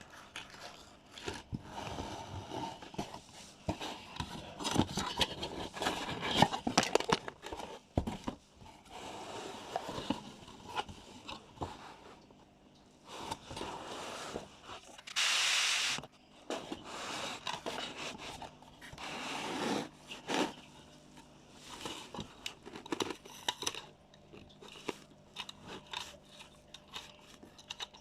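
Packaging and small parts being handled: irregular crinkling, scraping and crunching with small clicks and taps, and one louder rustle of about a second roughly halfway through.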